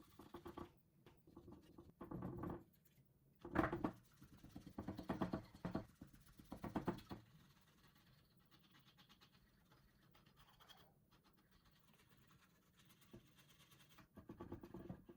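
Short bursts of dry scratching and rubbing, about five in the first seven seconds, then faint until one more burst near the end.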